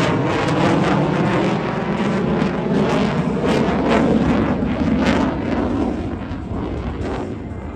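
Jet noise of an F-35A Lightning II's single F135 engine as the fighter pulls a hard manoeuvre: a loud, rushing roar broken by several sharp crackles, fading over the last two seconds.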